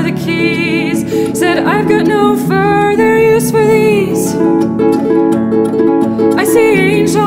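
Folk song sung by a woman over a plucked harp accompaniment. She holds long notes with vibrato, drops out for a couple of seconds after the middle while the harp carries on alone, and comes back in near the end.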